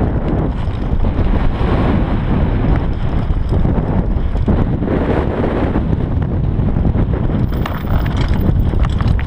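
Wind rushing over a GoPro Hero 3 Black's microphone on a downhill mountain bike at speed, with the rumble of the tyres on the dirt trail. Short knocks and rattles from the bike over stones come through it, more of them near the end as the trail turns rocky.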